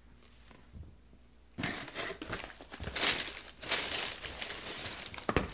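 Packaging crinkling and rustling as a subscription box is handled, starting about a second and a half in and going on in irregular crackly bursts, with a low thump near the end.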